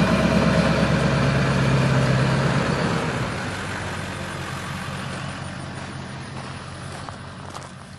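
Ford F-250 pickup's engine running as the truck drives past hauling a loaded gooseneck trailer. It is loud for the first three seconds, then fades steadily as the truck pulls away.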